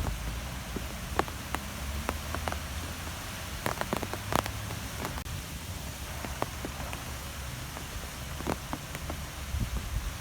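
Wind and light rain: a steady rushing noise with a low rumble, and scattered drops tapping irregularly, a few louder taps among them.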